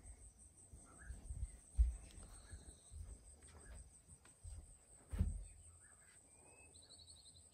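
Faint insect chirping over a steady high-pitched insect whine, with a brief rapid trill near the end. Low thumps come twice, about two and five seconds in.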